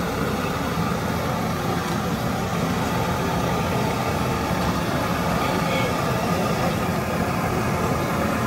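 Steady din of a busy, crowded market street, dominated by vehicle traffic noise.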